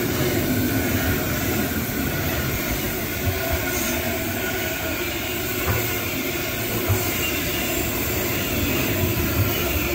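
Container freight train rolling past alongside the platform: a steady rumble of wagon wheels on the rails, with a few brief knocks from the wagons.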